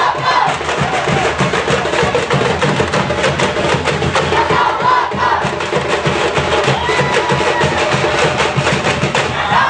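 Live festive music driven by fast, dense percussion, with a crowd shouting over it.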